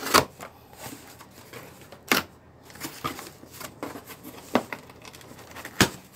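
Cardboard box being slit open with a small blade: the blade scraping along the packing tape, with cardboard rustling and four sharp cracks of tape and cardboard giving way, the last near the end.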